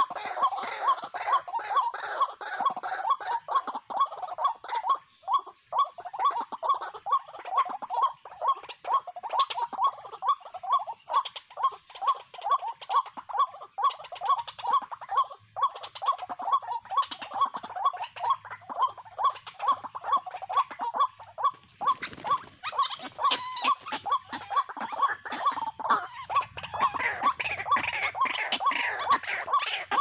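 White-breasted waterhens calling: a fast, even run of croaking notes, about three a second. Near the end the calling turns busier, with wing-flapping as a bird is caught in the snare.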